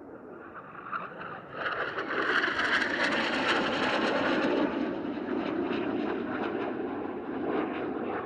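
Jet noise from a Canadair NF-5's twin turbojets as it makes a close pass. The sound swells about two seconds in, is loudest for a few seconds, then eases off a little as the jet draws away.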